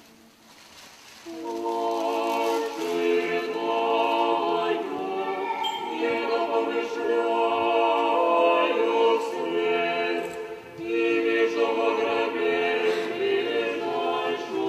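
Russian Orthodox church choir singing an unaccompanied memorial chant in sustained, blended chords. It enters about a second in, breaks off briefly near the end and then resumes.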